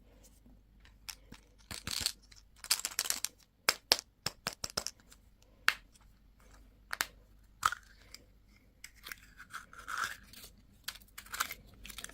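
Candy and toy packaging being handled and torn open: irregular crinkles, tears and sharp clicks of plastic wrapper and packaging.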